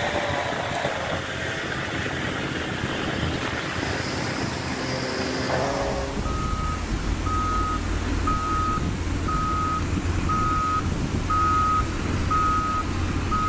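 A concrete mixer truck's reverse alarm beeping steadily about once a second over the low running of its diesel engine, starting about six seconds in. Before that, a heavy machine's engine is running.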